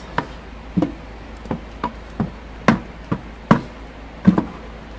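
Wooden stirring stick knocking against the inside of a plastic bucket while scraping out a thick sulfonic acid and texapon mixture: a series of sharp, irregular knocks, about two a second.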